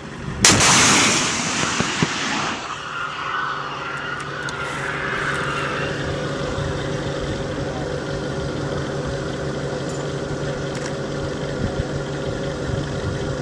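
An anti-tank missile fired from a Humvee's roof launcher: a sharp, loud launch blast about half a second in, then a rushing noise that fades over the next two seconds as the missile flies out, with a faint wavering whine after it. The Humvee's engine idles steadily underneath.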